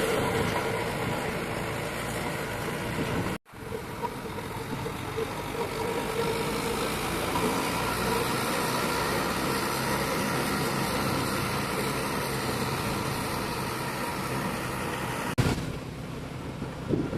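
Steady vehicle engine and road traffic noise, with no horn sounding. It breaks off for a moment about three and a half seconds in, and changes abruptly near the end.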